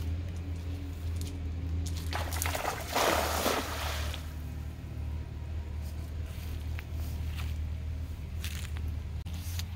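A cast net is thrown and lands on pond water, making a rushing splash that builds about two seconds in and is loudest around three seconds. A few short splashes follow near the end, and a steady low hum runs underneath throughout.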